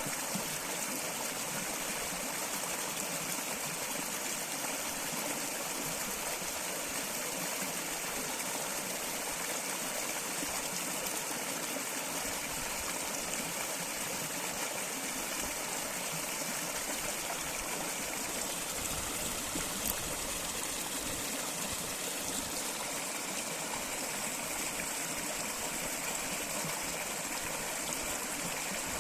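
Flowing stream water, a steady rushing and trickling hiss, with one brief tick about twenty seconds in.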